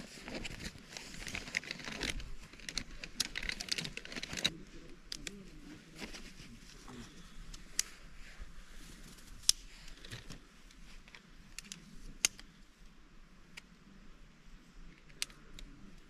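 Crinkling and rustling from gear being handled for about four seconds, then a scatter of light clicks and taps.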